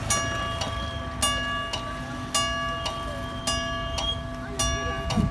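Level-crossing warning bell ringing in a steady, even rhythm, a little under two strikes a second, each strike ringing on: the signal that a train is approaching and the barriers are coming down. Low road-traffic rumble underneath.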